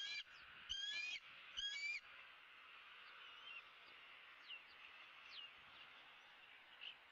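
Bald eagle calling: three quick runs of high, piping chittering notes in the first two seconds. A few faint short chirps follow.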